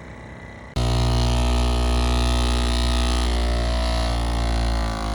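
Background music: a loud, sustained low synth drone that cuts in abruptly about a second in and holds steady, its pitch wavering slightly near the end.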